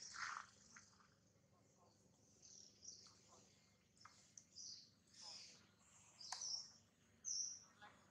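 Faint, short, high-pitched chirps of small birds, repeated at irregular intervals, with a couple of sharp clicks between them.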